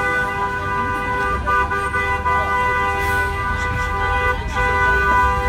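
A car's two-tone horn held down without a break, two steady pitches sounding together, over low traffic rumble.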